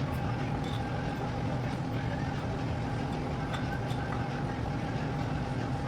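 Steady machine hum: a constant low rumble with a single held tone above it, and a few faint light ticks.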